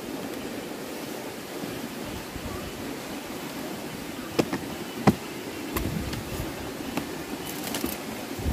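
Steady rushing of a river swollen with high water, with a few sharp light clicks in the second half.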